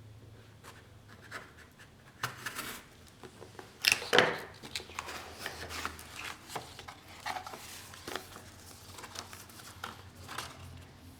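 Hands handling and opening product packaging: irregular scraping, rustling and light taps. There is a louder cluster of sharp handling noises about four seconds in.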